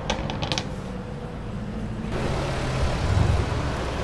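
Car exhaust: a quick run of sharp crackles at the start, then a low engine rumble that swells briefly about three seconds in.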